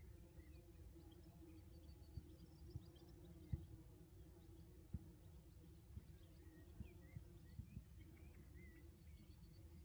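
Faint birdsong of scattered short chirps and little trills, over a steady low hum and a few soft low thumps.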